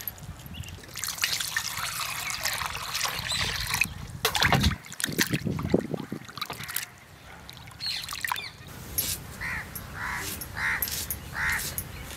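Hands swishing and sloshing prawns in a pot of water as they are washed. Near the end a crow caws about five times.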